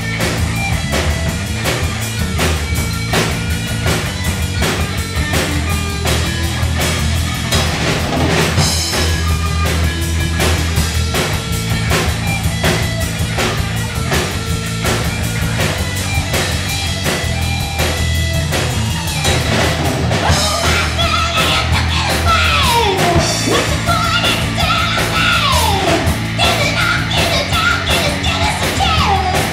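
A live rock trio of electric guitar, electric bass and drum kit playing loudly. In the second half, gliding, bending high notes come in over the band.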